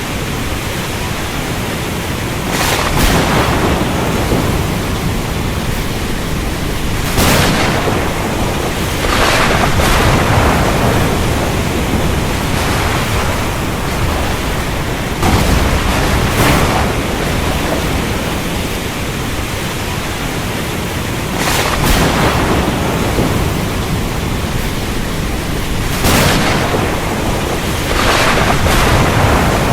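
Steady heavy rain with sharp cracks of thunder every few seconds, some coming in close pairs.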